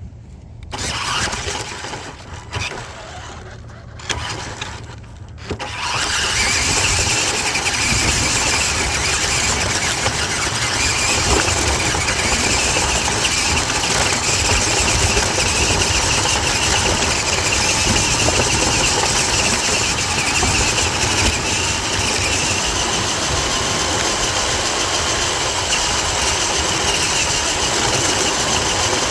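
Toy RC truck's small electric motor and gears whining steadily with rolling-wheel noise, heard close up from a camera riding on the truck as it drives. A few brief, broken noises come first, and the steady whine sets in about six seconds in.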